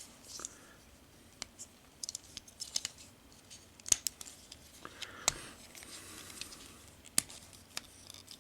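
Hard plastic toy parts clicking and scraping, irregular sharp clicks with light rubbing, as a Transformers figure is handled and pushed into a combiner connection.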